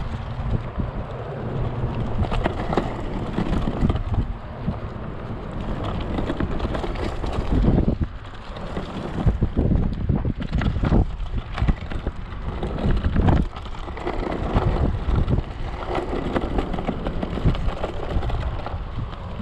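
Wind buffeting the microphone over the rumble and rattle of an Okai ES400A electric scooter ridden off-road on a dirt track, with frequent knocks as it goes over bumps.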